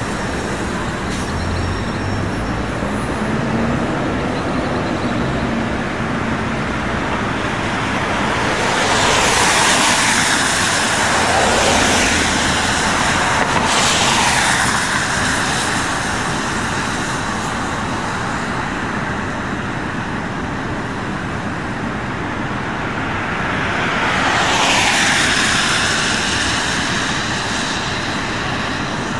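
City transit buses driving past one after another over a steady background of traffic noise. Three pass close together about a third of the way in and another near the end, each rising in loudness and dropping in pitch as it goes by.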